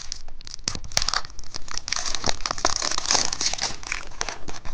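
Plastic candy wrapper crinkling and tearing, dense and irregular: a cookie-egg candy's packaging being pulled open by hand.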